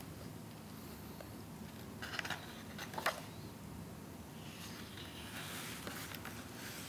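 Paper handling of a softcover photobook: two short paper rustles a few seconds in, then a page being turned with a longer, soft brushing rustle near the end.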